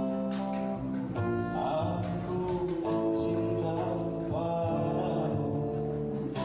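Live acoustic ensemble music: strummed acoustic guitar chords over electric bass, with a wavering melody line on top that comes and goes.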